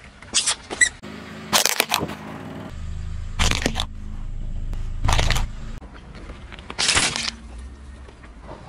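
A car tyre rolling over and crushing small objects, among them a plastic computer mouse: a string of sharp cracks and crunches, with the car's engine running low underneath through the middle of it.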